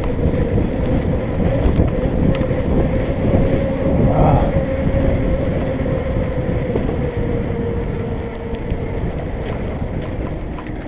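Electric bike's assist motor whining at a steady pitch while the bike is ridden, with wind buffeting the microphone.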